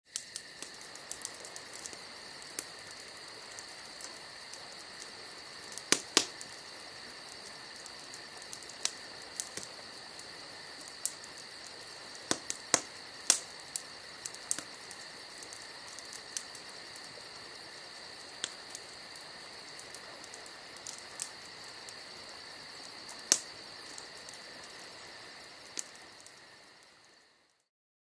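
Campfire crackling, with sharp pops and snaps at irregular intervals, a few much louder than the rest, over a steady chorus of crickets chirping. The whole fades out near the end.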